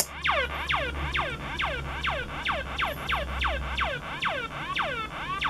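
MFOS Noise Toaster analogue synthesizer sounding a repeating falling pitch sweep, about three a second, each dropping from high to low. A sharp click comes right at the start.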